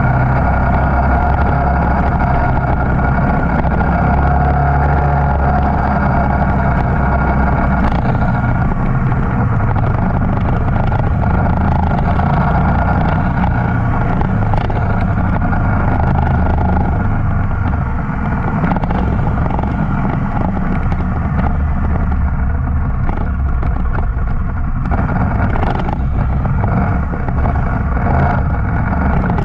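Motorcycle engine running continuously and loudly, a steady low drone with no breaks.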